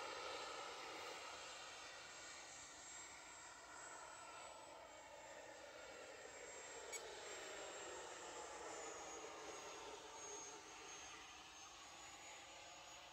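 E-flite F-16 Falcon model jet's 80 mm electric ducted fan whining in flight overhead, fading as the jet draws away. One brief click about seven seconds in.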